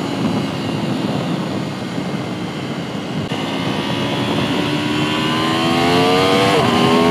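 Aprilia RSV4 RF's V4 engine pulling under acceleration, heard onboard with wind rush: the note holds steady, climbs from about three seconds in, drops sharply with a gear change near the end, and climbs again.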